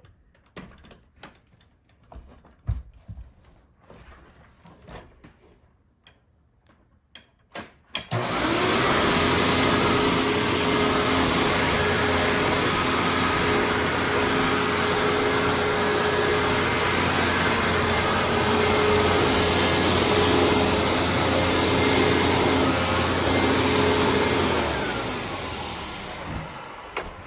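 Hoover WindTunnel bagged upright vacuum cleaner with a 12-amp motor, switched on about eight seconds in after a few faint clicks and knocks. It runs loud and steady with a steady whine, then is switched off and winds down near the end.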